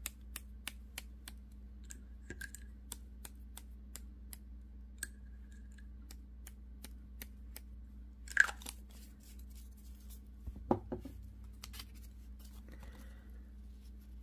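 A paintbrush tapped over and over, about three light clicks a second, against a small ink bottle to flick splatters of shimmery ink onto a paper tag. The tapping stops after several seconds, followed by a sharper clink and then a dull knock as things are handled on the table.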